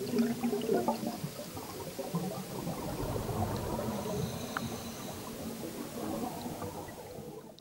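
Air bubbles rising underwater from a scuba diver's exhaled breath, an uneven crackling bubbling, recorded underwater. It fades out at the end.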